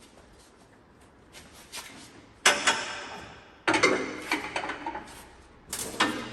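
Loud metal clanks and bangs: three sharp hits, each ringing away for about a second, with lighter knocks and scraping between them, as steel parts are handled and set in place.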